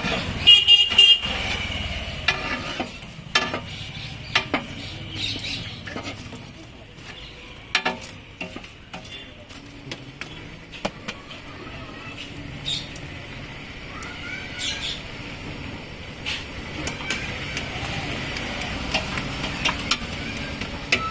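Busy street traffic noise with a vehicle horn tooting briefly about half a second in, and scattered sharp clicks and knocks throughout.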